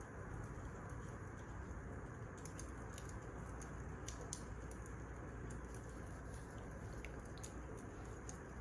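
Wood fire burning in a fireplace: a steady low rush with scattered small sharp crackles and pops.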